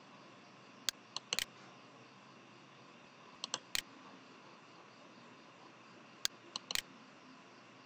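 Computer mouse buttons clicking, in three quick clusters of sharp clicks about a second, three and a half and six and a half seconds in, over a faint steady hiss.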